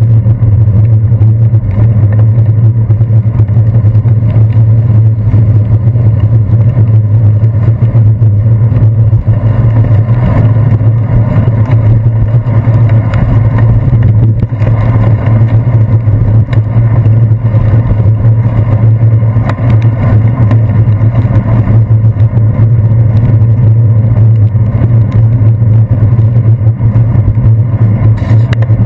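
Riding a bicycle through wet city traffic, heard through a handlebar-mounted GoPro Hero 2: a steady loud low hum and rumble of road and wind noise with passing motor vehicles.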